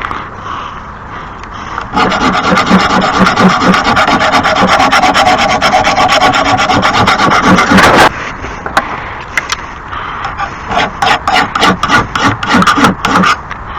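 Hand file rasping back and forth on a steel lawn mower blade to sharpen it: a fast, continuous run of strokes from about two seconds in to eight, then a shorter series of separate strokes near the end.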